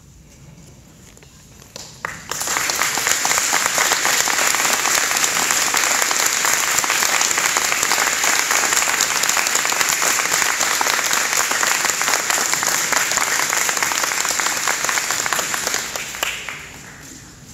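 Audience applause breaking out about two seconds in, holding steady and loud, then dying away near the end.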